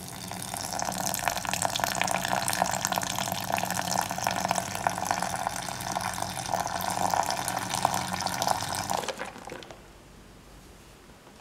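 Milk being poured in a steady stream into a stainless-steel mixer-grinder jar of ice cream and cream, splashing as it fills. The pour stops about nine seconds in.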